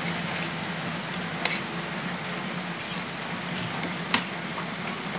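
Steady low hum and hiss of background noise, with two light clicks, one about a second and a half in and one just after four seconds, as a spoon taps a plastic plate while eating.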